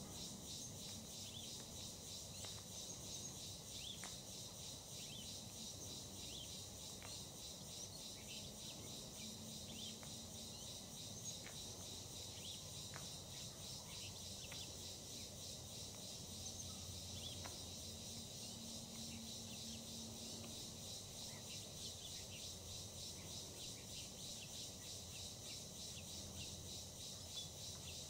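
Faint, steady insect chorus: a dense, high, rapidly pulsing trill, with scattered short falling chirps over it.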